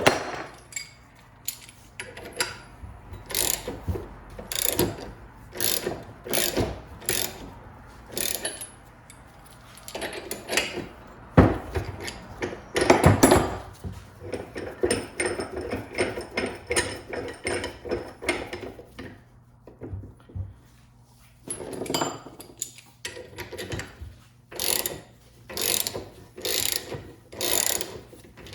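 Repeated sharp metal clicks and knocks, about one a second with a short pause partway through and a harder strike near the middle, from tools working a stubborn U-joint cap out of a double Cardan driveshaft yoke.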